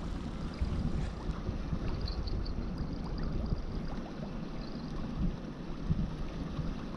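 Wind rumbling on the microphone over the steady wash of surf on a sea beach, with a few faint clicks.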